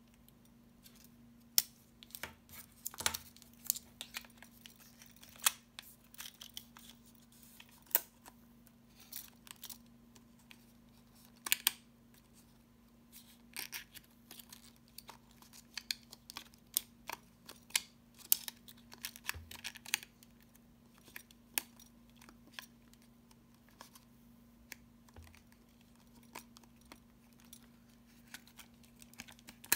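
Irregular clicks, taps and short scrapes of fingers and plastic and metal parts on a Minolta 7000 AF 35mm SLR's open film compartment as a film cartridge is loaded.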